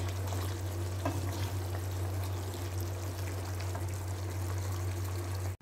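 Beef strips simmering in their sauce in a wok, a steady bubbling hiss, stirred with a wooden spatula; the beef is cooked through and tender. A steady low hum runs underneath.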